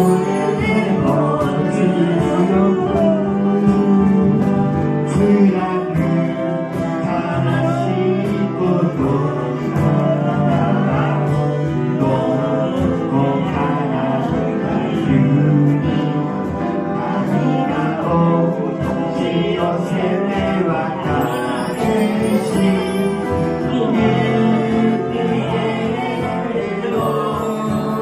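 Live concert music: a sung melody over a sustained instrumental accompaniment.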